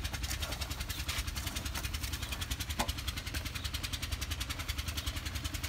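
Massey Ferguson 375 tractor's four-cylinder diesel engine idling steadily, with a single light knock about halfway through.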